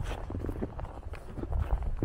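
Footsteps in snow: irregular crunching steps, a few a second, over a low rumble.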